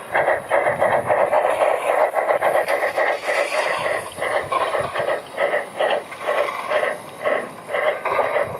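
Steam locomotive exhaust chuffing in an even rhythm of about two to three beats a second, thin with little bass.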